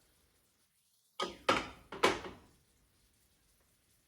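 Three quick knocks of cookware being handled, about a second in, each with a short ring after it.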